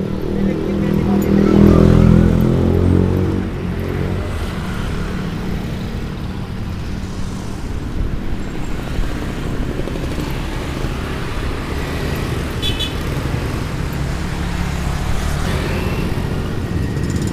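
Street traffic heard from a moving bicycle. A motorcycle engine goes by close and loud in the first three seconds, its pitch falling. Steady low wind and road rumble follow, with another motorbike engine rising near the end.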